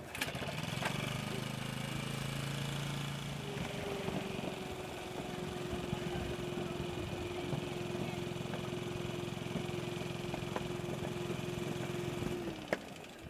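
Electric air blower running steadily, pumping air through a hose to inflate a water walking ball, with a low hum and a steady whine over it; it switches off shortly before the end.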